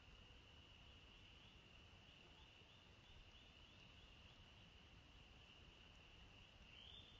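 Faint, steady high trill of insects such as crickets, with a low hum of outdoor background noise beneath it.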